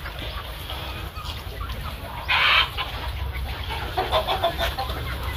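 A flock of free-range village chickens clucking, with scattered short calls that cluster about four seconds in. A short, loud, harsh burst comes about two and a half seconds in.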